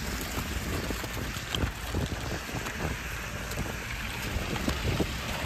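Steady wet outdoor hiss of rain and wind buffeting the microphone, with faint, scattered footsteps on wet slush and ice.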